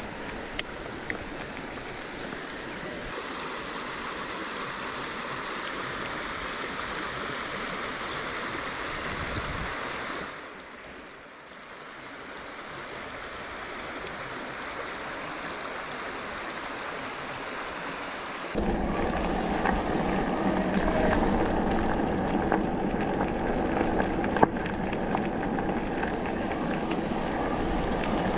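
Rushing water of a shallow, rocky forest stream. At about two-thirds of the way through it cuts suddenly to a louder, low rumble of mountain-bike tyres on a dirt trail, with wind on the microphone.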